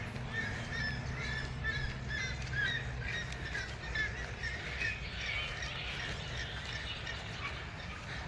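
Birds chirping and squawking in quick short calls, many in a row through the first part and thinning out later, over a steady low rumble.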